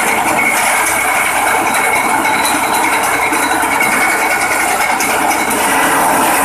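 Engine-driven grass chopper (chaff cutter) running and chopping fodder grass stalks as they are fed into its hopper, making a loud, steady mechanical noise.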